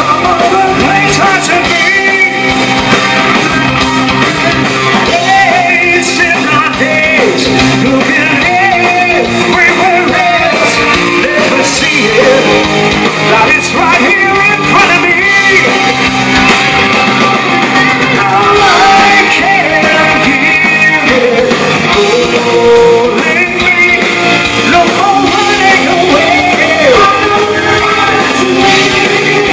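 Hard rock band playing live and loud: a man sings over distorted electric guitar, bass guitar and drums.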